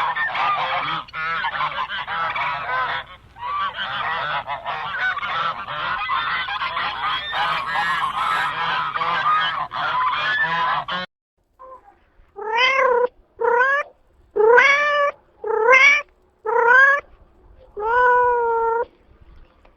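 A flock of geese honking, many calls overlapping, which cuts off suddenly about eleven seconds in. Then a cat meows about six times, each meow rising then falling, the last one drawn out.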